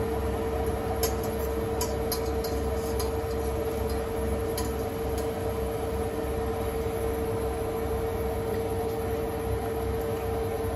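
Kitchen range hood exhaust fan running steadily: an even whirring hum with one steady mid-pitched tone. A few light clicks and taps come from work at the counter.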